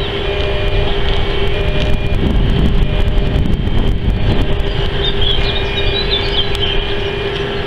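Wind buffeting the microphone in a dense low rumble, over a steady hum, with a few brief high chirps about five seconds in.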